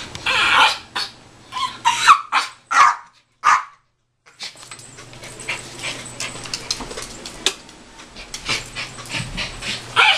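Miniature pinscher crying: a run of short, high whining cries one after another, then after a brief break only faint clicks until one more loud cry near the end.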